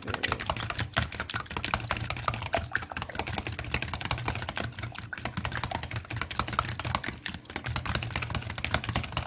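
Eggs with milk being beaten in a bowl: a utensil clicking rapidly and steadily against the bowl's side.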